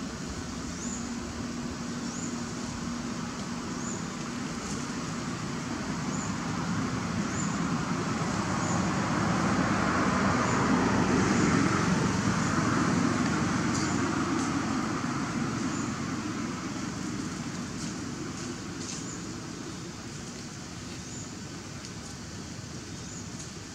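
A road vehicle passing by: a broad engine-and-tyre noise that swells to a peak about halfway through and then fades away. A short high chirp repeats about once a second behind it.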